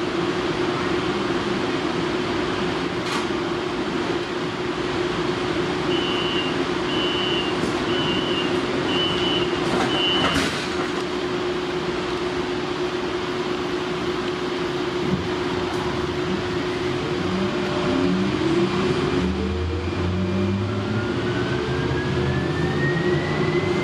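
Inside a Siemens S70 light-rail car: a steady electrical hum while the train stands at the platform, then a run of short high beeps about six seconds in. From about seventeen seconds in, the traction motors' whine rises in stepped tones as the train pulls away and picks up speed.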